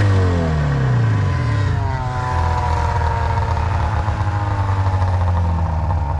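Snowmobile engine running, its pitch falling at the start, holding fairly steady, then dropping again near the end as it slows.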